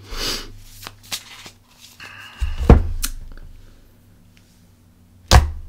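Things being handled on a tabletop: a brief rustle, then two dull thumps about two and a half seconds apart, the first the louder.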